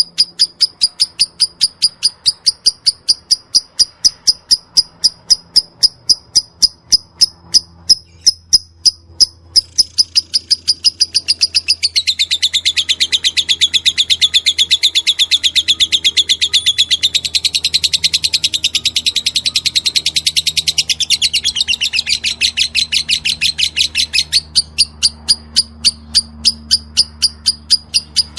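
Lovebird calling in the 'ngetik' (typing) style: sharp, high chirps repeated about three to four times a second. About ten seconds in, these run together into a dense, fast, buzzing trill, the 'konslet' call. The trill lasts about twelve seconds before the bird falls back into the separate ticking chirps.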